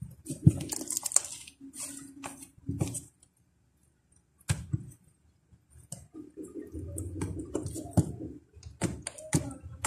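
Yellow clay slime being squished and kneaded by hand, giving a string of short sticky clicks and pops with a quiet pause partway through.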